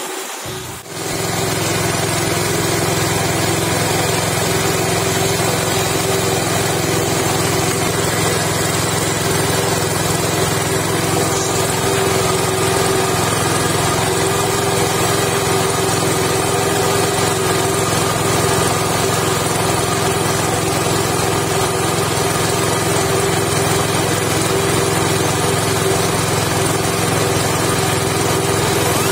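Small petrol engine driving a stone chili-grinding mill, running steadily under load as fresh chilies are ground into paste. There is a brief dip just after the start.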